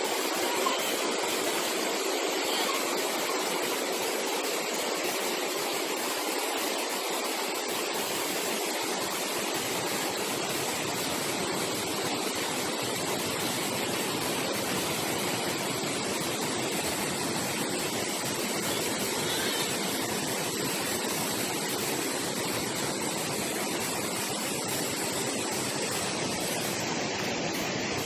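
Waterfall and stream water rushing steadily, an even, unbroken wash of noise; a deeper low rumble joins about nine seconds in.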